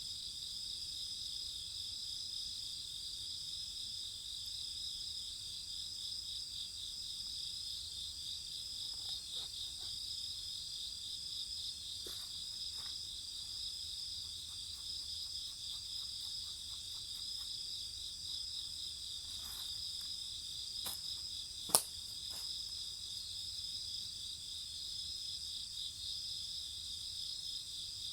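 A steady, pulsing chorus of insects trilling, with a few scattered pops and crackles from a wood bonfire. The loudest is one sharp pop about three quarters of the way in.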